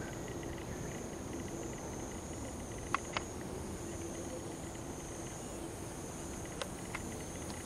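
A steady, high-pitched chorus of insects chirring, with a few short clicks about three seconds in and again near the end.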